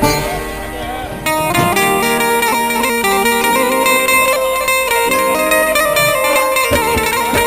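Instrumental background music with a run of changing notes, getting louder and fuller a little over a second in.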